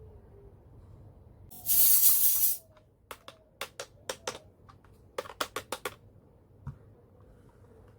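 A burst of hiss about a second long, then a quick, uneven run of about a dozen small sharp clicks and taps from the handling of miniature toy kitchen pieces.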